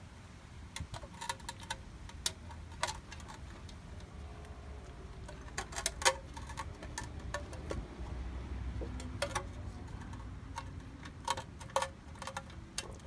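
Scattered, irregular sharp metallic clicks and taps from hand tools and bolts being handled while refitting a transmission oil pan and its rubber gasket, over a low steady rumble; one louder click about six seconds in.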